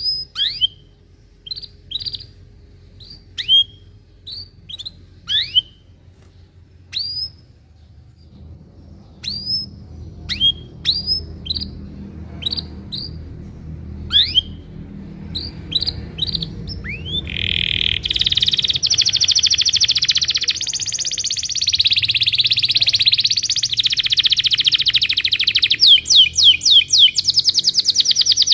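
Canary singing: short chirps that fall sharply in pitch, spaced about a second apart, then about two-thirds of the way in a long continuous rolling trill, ending in a fast run of repeated chirps.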